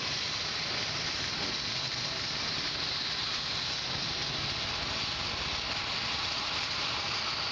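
Steady hiss of city traffic, cars passing on the square, with no single event standing out.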